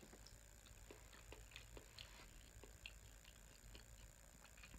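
Very faint eating sounds: a person chewing sushi, with scattered small clicks and ticks from the mouth and fork over a low steady hum.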